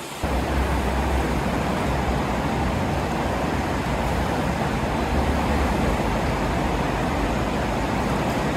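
Steady roar of fast-flowing, churning floodwater, with a deep rumble under it. It starts suddenly just after the start.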